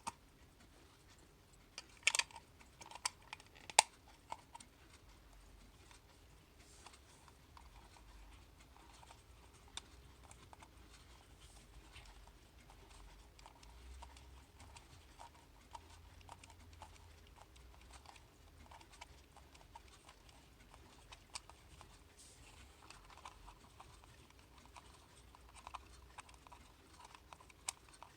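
Irregular small plastic clicks and taps of a Rhythm analog alarm clock being handled while its battery is changed, with a few sharper, louder clicks about two to four seconds in.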